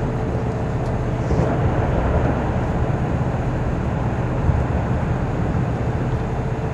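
Tour boat's engine running steadily, a low drone with a faint steady hum over it, mixed with open-air noise.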